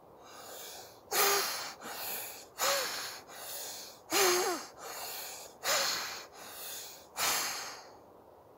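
Forceful breaths through one nostril at a time in anulom vilom bhastrika pranayama, the alternate-nostril bellows breath. Strong and weaker breaths alternate, with a strong stroke about every second and a half for about five rounds. A faint nasal whistle sounds in some of the strong strokes.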